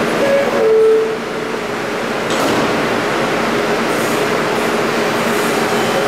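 An R160 subway car's two-note door chime, stepping down in pitch, within the first second, then its doors sliding shut. The stopped train then hums steadily in the station.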